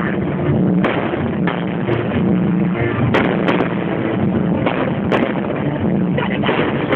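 Fireworks display: a run of sharp bangs, about eight, from shells launching and bursting in quick, uneven succession over a steady din.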